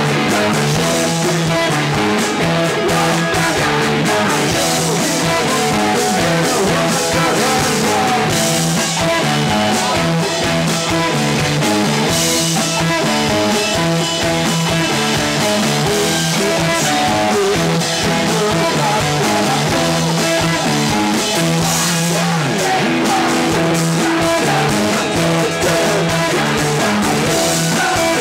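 Rock band playing live: loud electric guitars with a male singer's voice over them, without a break.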